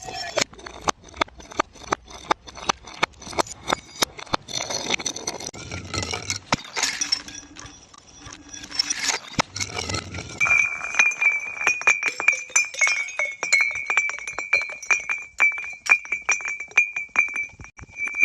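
Glass bottles clinking and breaking: a rapid run of sharp glass clinks and cracks, thickening into a denser crunching stretch midway. From about ten seconds in, a steady high ringing tone sounds under quick clinks.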